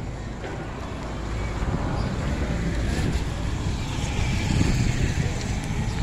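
Street traffic rumbling past, a vehicle growing louder through the middle, with wind on the phone's microphone.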